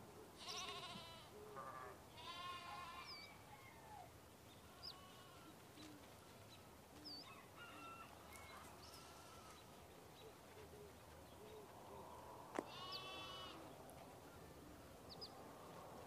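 Sheep bleating several times, each call wavering: twice near the start, a few fainter calls midway, and one more late on. Short high bird chirps come between the bleats, and a single sharp click sounds just before the last bleat.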